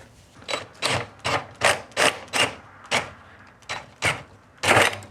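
Power drill with a large bit in a hole in a metal enclosure, catching and juddering in a series of about a dozen short, harsh bursts, two or three a second, the last one the longest and loudest. The bit grabs and spins in place rather than cutting through.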